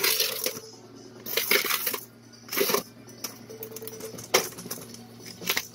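Fel-Pro head gasket handled in its cardboard-and-plastic package: about five short bursts of rustling and light metallic clinking, over a steady low hum.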